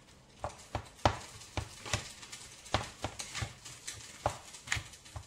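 A spoon stirring rice in a wooden bowl: irregular light knocks and scrapes of the spoon against the bowl, about a dozen in all.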